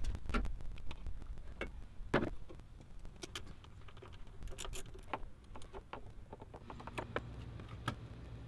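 Scattered small clicks and light knocks of hands working plastic and metal parts in a car engine bay, as the intake's air valve is unfastened and unplugged. The clicks come irregularly, several a second at times, with a stronger knock about two seconds in.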